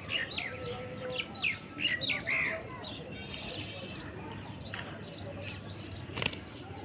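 Pet parrot chirping and giving short whistled calls: a quick run of chirps in the first two and a half seconds, then a quieter stretch and one more sharp call about six seconds in.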